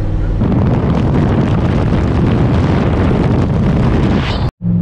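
Loud wind rushing and buffeting over the microphone of a camera held outside a car at highway speed, mixed with the twin-turbo Corvette's engine and road noise. It starts abruptly about half a second in and cuts off suddenly near the end.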